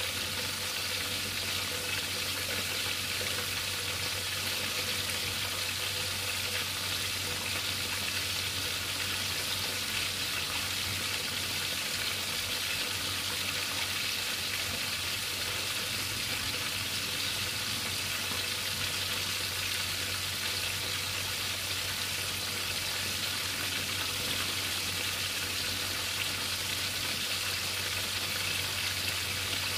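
Whole tilapia frying in hot oil in a pan, the oil sizzling steadily.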